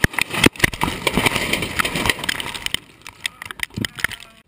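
Crash of a small aircraft heard from the cockpit: a rapid series of sharp knocks, cracks and rattles of the airframe striking and tumbling. The impacts thin out and fade after about three seconds, leaving a few scattered clicks.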